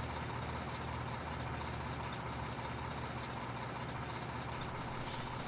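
Remote-control fire rescue truck running with a steady truck-engine-like hum as it drives.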